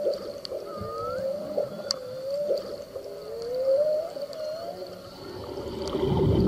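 Whale song: long moaning calls that glide smoothly up and down in pitch, one after another, with faint sharp clicks. Near the end the calls give way to a steadier tone and a swelling hiss.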